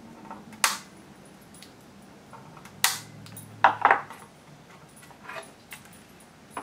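Small flush-cut diagonal cutters snipping off excess capacitor leads on a printed circuit board: a few sharp metallic clicks, one about half a second in and one near three seconds. A close pair of clicks follows just after, and a fainter one later, as the board is handled.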